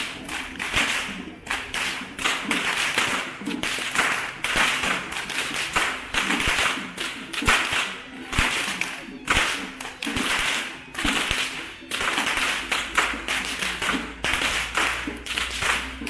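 Long rope whips cracked repeatedly by Kandyan perahera whip crackers: sharp, loud cracks about one or two a second, two whips overlapping.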